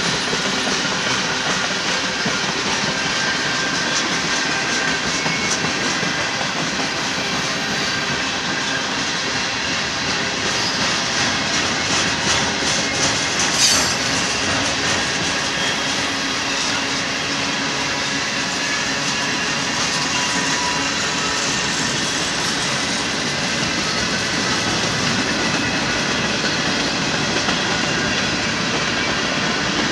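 Freight cars of a Union Pacific merchandise train rolling past, tank cars and then covered hoppers: a steady rumble of steel wheels on rail with light clicking over the joints, and one sharp clack about halfway through.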